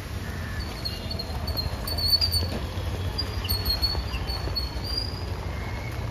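Wet city street ambience: a steady low rumble of traffic and tyres on the wet road, with thin high squeaks about two and four seconds in.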